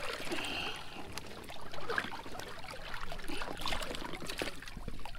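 Water splashing and trickling as a large stingray beats its wings at the surface against the side of a boat.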